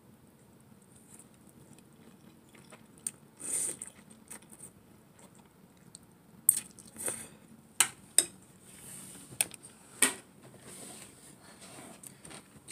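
Eating sounds of a noodle meal: several sharp clicks of a utensil against a bowl and short bursts of chewing, spread over the second half, with quiet between.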